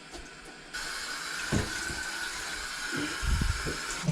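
Water running from a tap onto a mop pad: a steady hiss that starts about a second in and cuts off suddenly near the end, with a few soft handling thumps.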